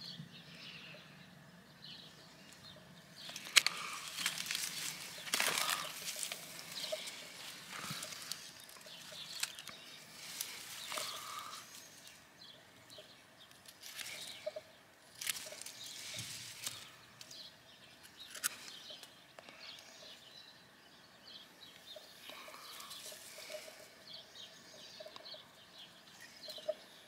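Scattered small cutting and handling sounds: pruning shears snipping and a knife shaving an olive scion for a crown graft, with a few sharp clicks and rustling of dry grass.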